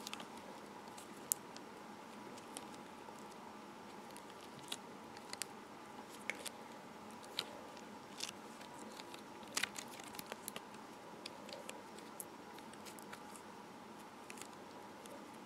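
Crazy Aaron's Thinking Putty stretched and pulled in the hands: faint, irregular small sticky clicks and crackles over a low steady hiss.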